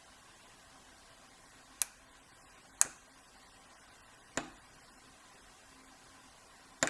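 Four sharp metallic clicks, irregularly spaced about one to two seconds apart, from a lock pick working the pin stack of an old Wilson Bohannan brass padlock during single-pin picking.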